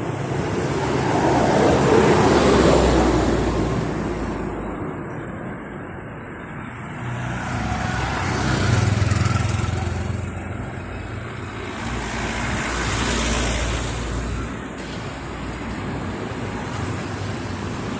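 Busy town street traffic: a steady rumble of engines and tyres as several vehicles pass one after another, the loudest about two seconds in and others around nine and thirteen seconds.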